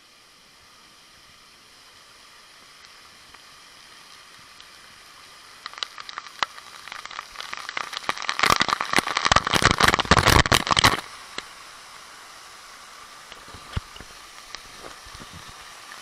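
Waterfall rushing with a steady hiss that slowly grows. From about six seconds in, falling spray patters and crackles directly on the camera held in the water's path, loudest for the few seconds before it cuts off suddenly about eleven seconds in.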